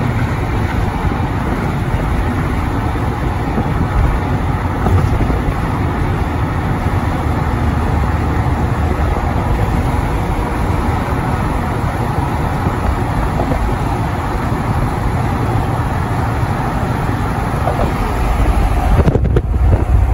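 Steady road and wind noise of a car at highway speed: a low rumble of tyres and engine under a hiss of rushing air. It grows a little louder near the end.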